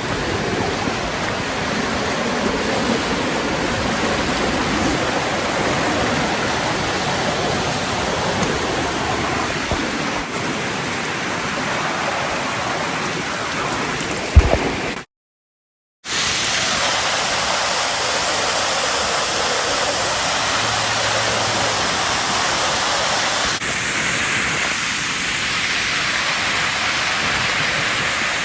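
Waterfall pouring, a steady rush of falling water. It cuts to silence for about a second halfway through, just after a short sharp knock.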